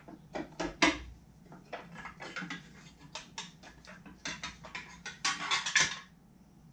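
Hand tools clicking and clinking on metal while the 10 mm bolts of an outboard motor's forward lower apron are taken out, in short irregular bunches of sharp clicks, the loudest bunch a little after five seconds in.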